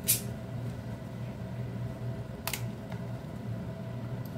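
Beer bottle's crown cap prised off with an opener: a short sharp pop and hiss at the very start, then a second brief click about halfway through. A steady low hum runs underneath.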